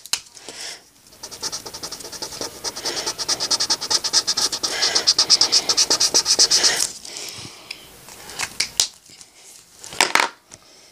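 Rapid back-and-forth scribbling of a drawing tool colouring in on paper, several strokes a second for about five seconds. It ends in a few light knocks near the end.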